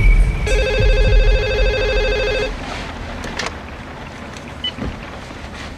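Cordless phone ringing electronically: one warbling trill about two seconds long, over a low rumble that fades out as the ring ends.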